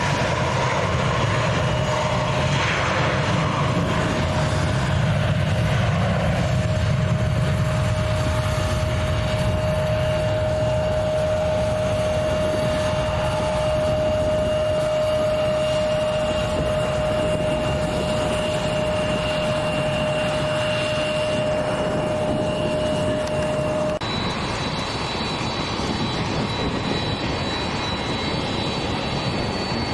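Jet airliner engines running, a steady low rumble with a single held whine. About three-quarters of the way through, the sound cuts abruptly to a different steady engine whine, higher in pitch.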